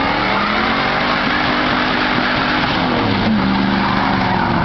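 Chevrolet Silverado pickup's engine held at high revs in a burnout on wet pavement. The engine note sags slightly, shifts about three seconds in, then holds steady over a dense rushing noise.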